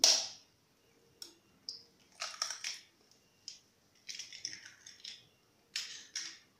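Metal spoon tapping raw eggshells to crack them: single sharp clicks and short runs of quick taps, with the crunch of shell breaking.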